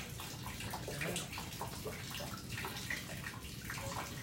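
Steady rush of water running through a clear acrylic meandering-river flow model, fed at about 1.65 litres per minute.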